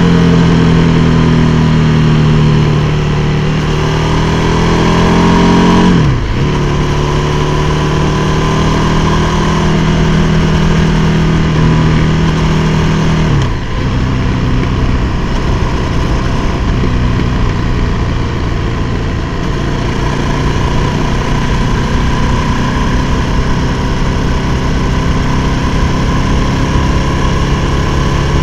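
KTM 1290 Super Duke R's V-twin engine pulling under the rider. It climbs in pitch, drops sharply at a gear change about six seconds in and again about halfway through, then holds a steady cruise.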